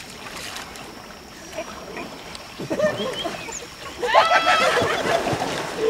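River water sloshing around people and elephants wading, then high-pitched cries from about three seconds in, the loudest a sharp rising cry about four seconds in.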